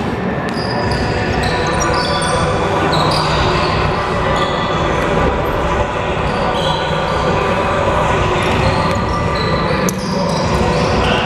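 Basketball bouncing on a hardwood gym floor, with short high sneaker squeaks and players' voices echoing through a large gym.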